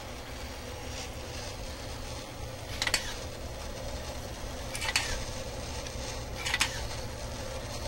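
Small wheeled robot on the move: a steady low motor hum with three sharp metallic clicks, about two seconds apart.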